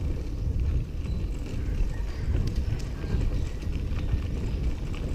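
Wind rumbling on the microphone over the noise of a bicycle rolling along a bumpy dirt road, with small scattered knocks from the ride.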